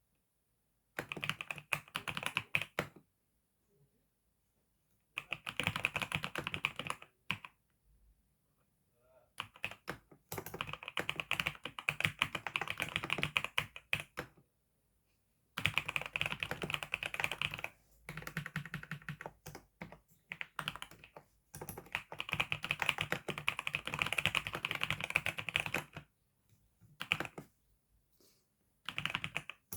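Typing on a newly bought computer keyboard: fast runs of key clicks, each lasting a few seconds, broken by short pauses.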